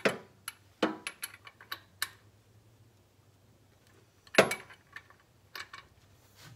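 Sharp metallic clicks and clinks of a ratchet wrench on the crankshaft pulley bolt as the engine is turned over by hand. There are about six quick clicks in the first two seconds, a loud clank a little over four seconds in, and a few more clicks near the end.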